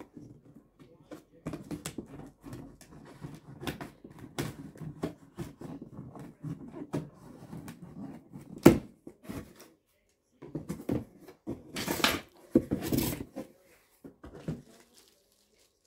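A cardboard box being opened by hand: scattered knocks, rustles and scrapes as the top flaps are worked loose and pulled up. There is one sharp knock a little past the middle and a longer scraping rustle of cardboard about three quarters of the way in.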